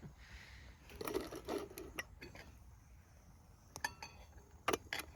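Metal camp cookware clinking and knocking as it is handled: scattered sharp clinks, a cluster about one to two seconds in and a few more near the end.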